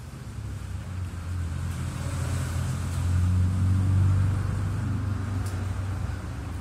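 A low, steady mechanical rumble that swells about midway and then eases off slightly.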